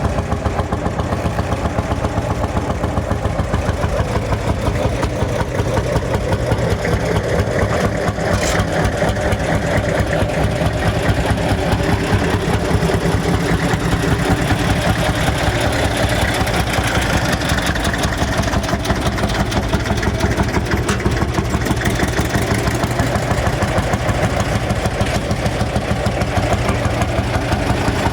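Lanz Bulldog-type single-cylinder two-stroke hot-bulb tractor engine running steadily, with a fast, even thumping beat.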